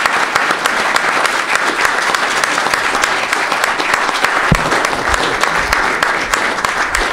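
Audience applauding, a dense, steady clapping. From about halfway through, a few low thumps sound under it.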